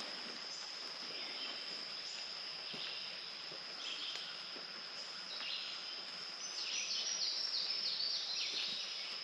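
Birds singing over a steady, high-pitched insect buzz, with a quick run of repeated bird notes about two-thirds of the way through.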